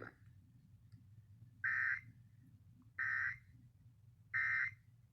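Emergency Alert System end-of-message signal: three short bursts of SAME digital data tones, each about half a second long and a little over a second apart, marking the close of the required monthly test.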